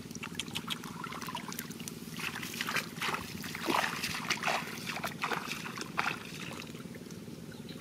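Bare feet wading through shallow, muddy water: irregular sloshing, splashing steps that fade out about six seconds in, over a steady low background hum.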